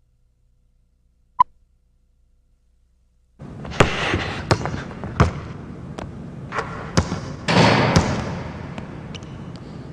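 A single short beep from the countdown leader, then a basketball being dribbled on a hardwood gym floor: irregular bounces every half second to a second, ringing in the large gym over a steady room hiss.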